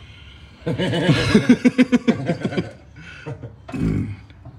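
A man laughing hard in quick repeated bursts for about two seconds, then a shorter laugh or exclamation near the end.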